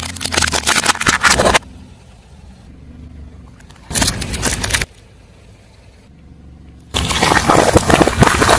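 Car tyre rolling over and crushing crunchy objects: three bursts of dense crackling and crunching, each starting and stopping abruptly, with a faint low engine hum between them.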